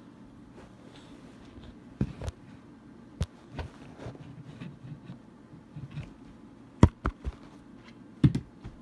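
Scattered knocks and bumps on or against the recording phone as it is shifted, over a steady low hum. The loudest knocks come about seven and eight seconds in.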